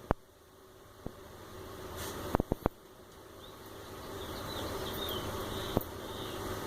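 Small steel hardware (M3 square nuts, screws and tweezers) clicking and tapping against acrylic printer frame panels while being fitted: a sharp click near the start, a quick run of three taps around the middle, and another click near the end. A steady low hum runs underneath, growing louder after the middle.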